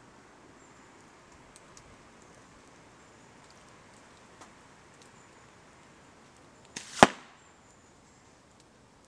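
A single slingshot shot: a short whoosh rising into one sharp, loud snap about seven seconds in, as the rubber bands are released and slap forward.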